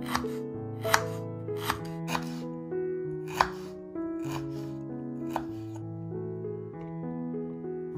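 A knife cutting through fresh ginger root onto a wooden cutting board: about eight separate cuts at an uneven pace over the first five and a half seconds. Soft background music with sustained notes plays throughout.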